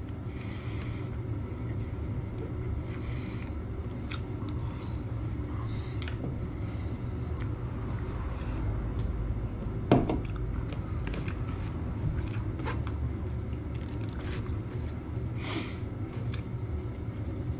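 Eating with a knife and fork from a paper plate: cutlery clicking and scraping against the plate, with chewing, over a steady low hum. A single short, louder sound comes about ten seconds in.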